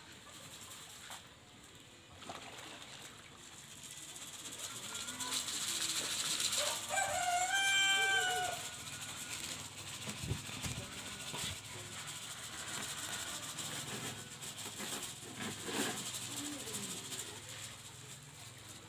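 Outdoor background with one distant, drawn-out pitched call about seven seconds in, lasting a second and a half, followed a few seconds later by a low thump.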